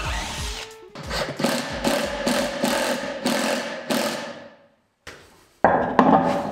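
Cordless impact driver driving screws into a large glued-up wooden block in a run of short rattling bursts, about three a second. Near the end come two loud knocks as the heavy block is set on the lathe.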